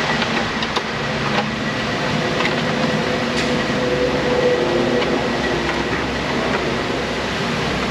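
Steady loud rushing noise with a few sharp metallic clicks. A cordless ratchet gives two short faint whirs in the middle, spinning out heat shield bolts.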